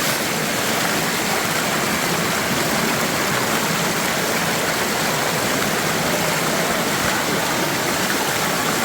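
Steady rush of water at a waterfall, an even, unbroken sound of falling and flowing water close by.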